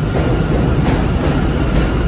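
New York City Subway train pulling into an elevated station, its wheels rumbling steadily on the rails with a few light clicks over rail joints.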